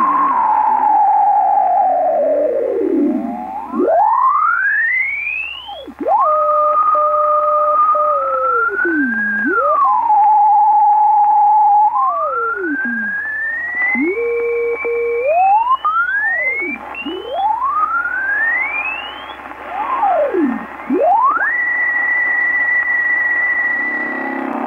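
Heterodyne whistles from a Yaesu FRG-100 communications receiver in USB mode as it is tuned across longwave carriers around the 60 kHz time-signal stations. Pure tones slide up and down in pitch as the dial turns and hold steady wherever the tuning pauses, the last one held high near the end, over a background hiss.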